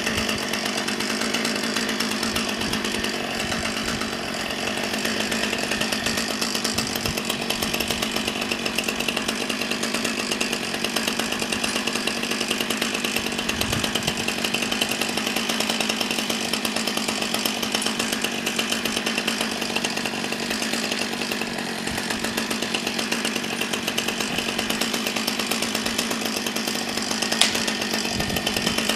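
Chainsaw engine running steadily at speed, cutting a tree, with one sharp click near the end.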